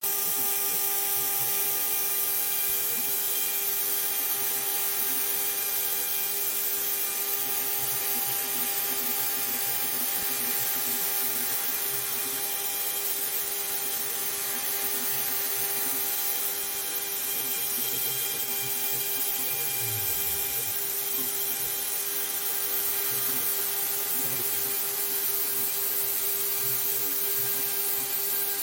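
Small CNC machine's spindle motor running steadily while it mills a printed circuit board, a steady whine over a high hiss.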